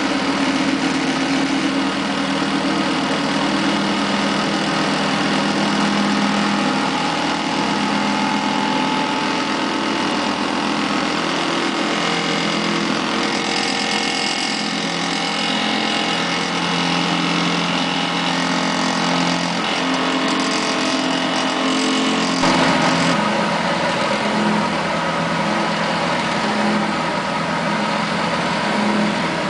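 Frigidaire spin dryer running at speed: a steady motor and drum hum, with water draining from its spout into a tray. The tone shifts a little about three-quarters of the way through.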